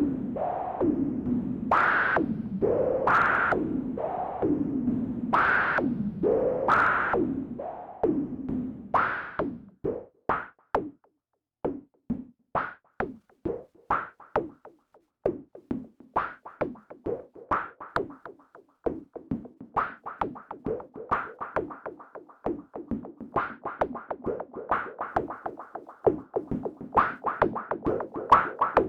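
Modular synthesizer playing sequenced percussion from a noise source through a Wasp-style filter and envelope-gated VCA. At first there are swooping noise hits with falling sweeps about once a second; after about nine seconds they turn into fast, short clicking hits.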